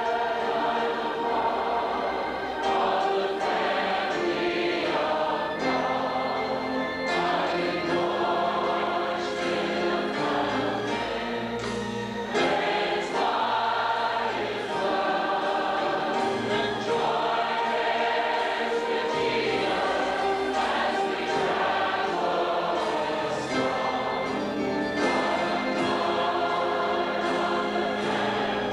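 A large congregation singing a worship song together, led by a song leader.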